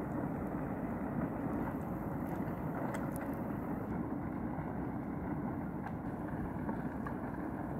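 Steady low rumble and hiss of drifting river ice floes grinding and rubbing against each other, with a few faint ticks.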